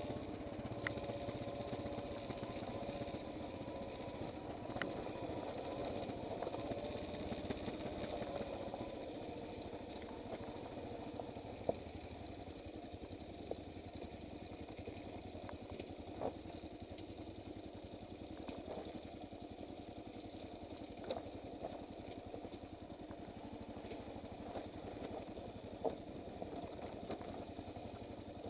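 Motorcycle engine running steadily on a downhill rocky dirt track, heard from a helmet-mounted camera. The engine note wavers for the first several seconds, then holds steady, with several short, sharp knocks scattered throughout.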